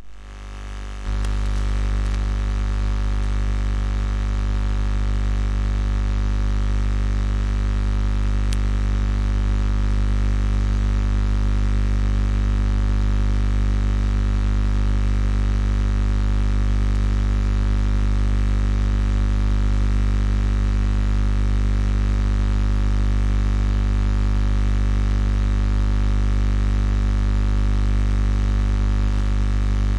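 A loud, steady electrical hum with many fixed tones, heaviest at the low end, that does not change at all; it sets in about a second in, after the singing cuts off.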